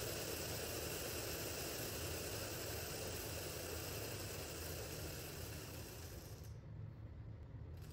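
Oat Foundry split-flap display with many flaps flipping at once, a dense rapid clatter that blurs into a hiss. Near the end it thins out as most modules come to rest and only a few keep flipping.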